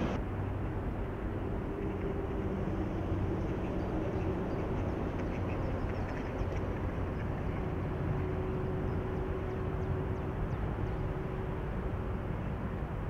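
Steady low outdoor background rumble with a faint steady hum running through it, as of distant traffic or machinery, and a few faint light ticks.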